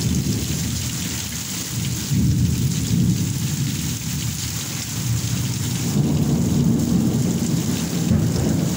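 Heavy thunderstorm rain pouring down steadily with a constant hiss, under a low rumble that swells about two seconds in and again about six seconds in.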